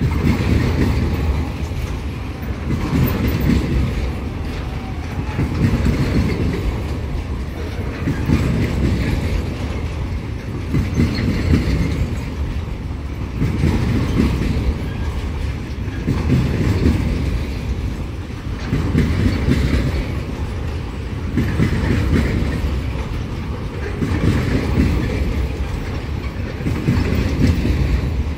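Empty pulp freight train's container flatcars rolling past at speed: a steady low rumble of steel wheels on rail with clickety-clack, swelling about every two seconds as each car's wheelsets go by.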